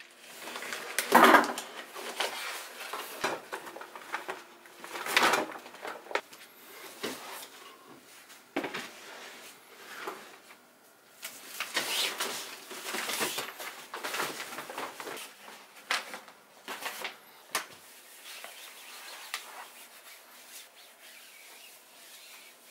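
Household clutter being pulled out of an under-sink kitchen cabinet: plastic bags rustling, and plastic baskets and containers knocking and scraping, in irregular bursts. It grows faint for the last few seconds, with only light rubbing as the cabinet floor is wiped with a cloth.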